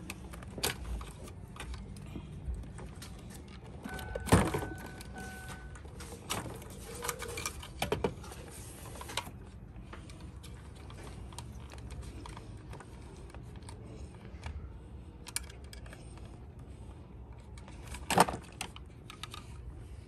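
Small plastic clicks and rattles of wiring harness connectors being unplugged from a pickup's power window and lock switch, with a small screwdriver pressing the release tabs; the sharpest clicks come about four seconds in and near the end. A short steady tone sounds for about two seconds a little after the first loud click.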